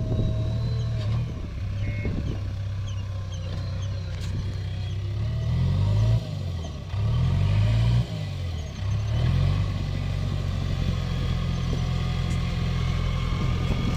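Heavy diesel engine running steadily, revved up and down about three times in the middle before settling back to a steady run.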